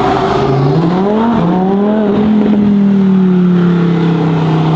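Car engine revving hard: the revs climb sharply about half a second in, then are held high and ease slowly down.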